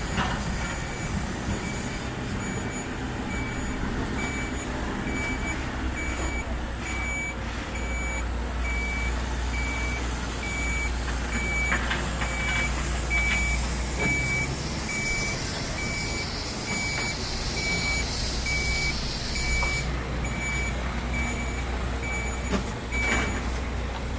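A truck's reversing alarm beeping in a steady, regular series over the low rumble of its diesel engine as it backs up, the beeps stopping shortly before the end. A hiss rises for a few seconds midway.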